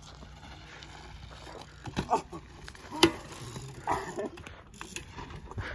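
BMX bike rolling on a dirt track, with a single sharp knock about three seconds in and faint voices in the background.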